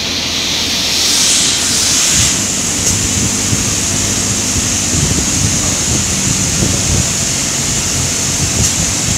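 Loud, steady machinery noise on an offshore drilling rig floor: a constant low hum under a broad hiss, with a few rougher rumbles from about five seconds in.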